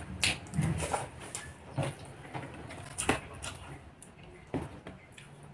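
Close-up eating sounds: chewing and lip smacks as rice and chicken curry are eaten by hand, with a handful of short sharp clicks spread through.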